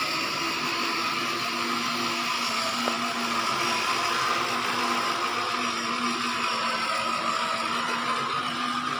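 Small electric motor of a ride-on toy motorcycle whining steadily as it drives along.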